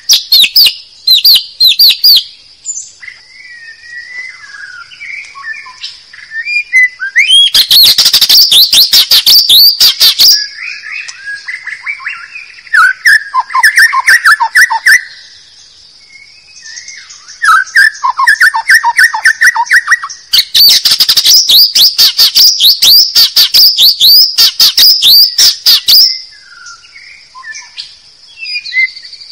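White-rumped shama (murai batu) calls from a bird-trapping lure recording. Two loud runs of rapid repeated notes, about five a second, one about three seconds long and one about five seconds long, alternate with softer, lower warbling phrases over a thin high steady tone.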